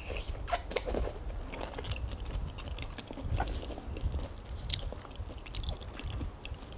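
A person chewing raw sweet shrimp up close, with scattered wet mouth clicks and smacks.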